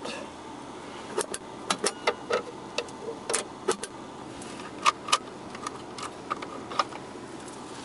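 Plastic dashboard parts clicking as a hand works them: the push-to-open storage compartment lid and the adjustable louvres of an air vent, giving a string of sharp, irregular clicks and snaps over a steady faint hum.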